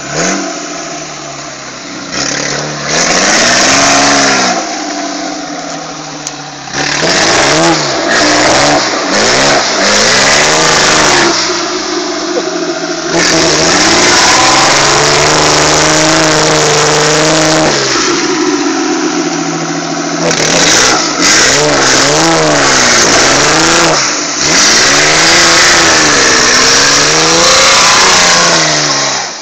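Off-road 4x4's engine revved hard again and again, its pitch climbing and falling with each burst and easing off briefly a few times, as the vehicle churns through mud and water.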